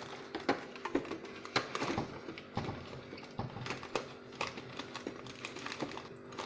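Containers and their lids being handled, giving a string of irregular clicks and knocks over a faint steady hum.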